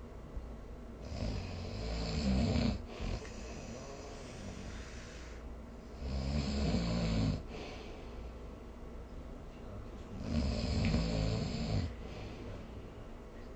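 A sleeper snoring: three loud, rasping snores about four to five seconds apart, each lasting about a second and a half, with quieter breathing between.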